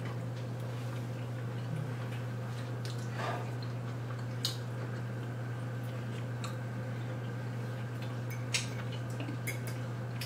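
Forks and spoons clicking against dinner plates now and then during a meal, a handful of small separate clicks over a steady low hum.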